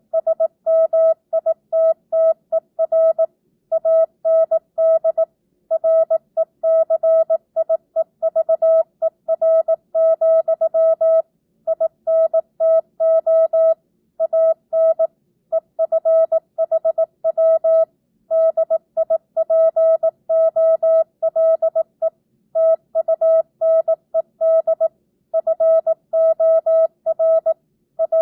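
Morse code (CW) sidetone: a single steady beep keyed on and off in dots and dashes at 18 words per minute with standard, non-Farnsworth spacing. It spells out one side of a simulated amateur radio CW contact, with short gaps between characters and longer gaps between words.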